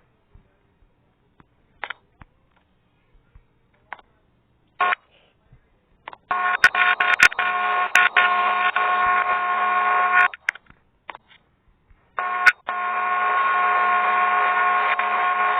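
A steady buzzing hum made of several fixed tones, with a few light clicks before it. It starts about six seconds in, cuts off about four seconds later, and starts again about two seconds after that.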